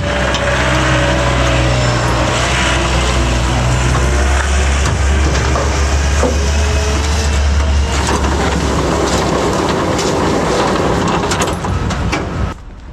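An engine runs close by with a loud, steady low drone. About eight seconds in the drone gives way to rougher machine noise with a few knocks, which falls away near the end.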